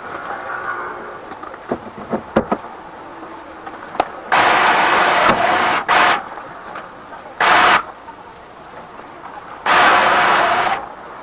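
Drill-driven flexible-shaft drain cleaner spinning its cable inside a blocked kitchen drain pipe, run in four short bursts, the longest about a second and a half, each with a high motor whine. A few light knocks come before the first burst.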